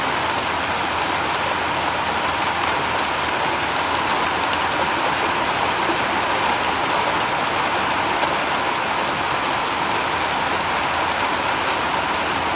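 Steady rain falling on a shingle roof: a dense, even patter of drops with no breaks or change in strength.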